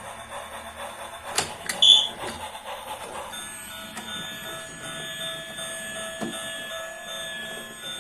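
Plastic clicking and a short high beep from a toy, then a steady high electronic whine from a running toy.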